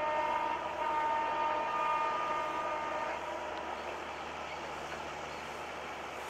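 Air horn of an EMD GT42ACL diesel locomotive sounding a steady chord of several notes, stopping about three seconds in. The running noise of the approaching train continues under it and after it.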